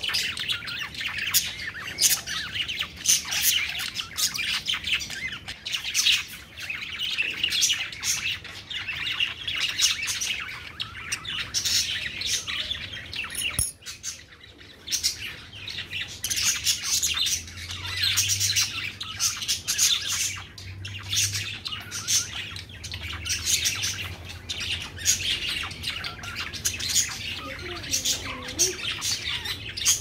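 A group of caged budgerigars chirping and chattering continuously, with a brief lull about halfway through.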